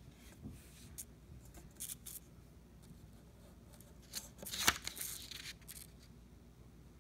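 Pen scratching a few short strokes on paper, then a louder rustle of the paper sheet being handled, with a sharp click about four and a half seconds in.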